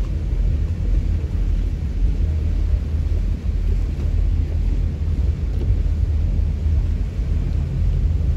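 Steady low rumble of a motor cruiser under way, with wind buffeting the microphone.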